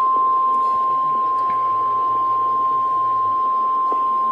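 NOAA Weather Radio's 1050 Hz warning alarm tone: a single loud, steady beep held without a break. It signals that a severe thunderstorm warning is about to be read.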